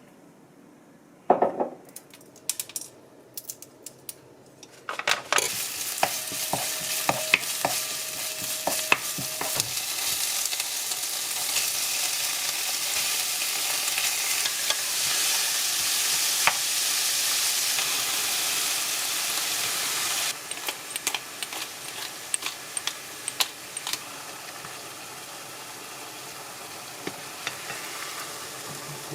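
Pad thai being stir-fried in a hot pan: food sizzling while a utensil stirs and taps against the pan. A few knocks and clicks come first, the sizzle starts loud about five seconds in, and it drops to a quieter sizzle about twenty seconds in.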